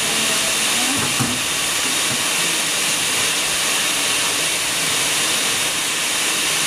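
Steady hissing noise at an even level, with a faint voice about a second in.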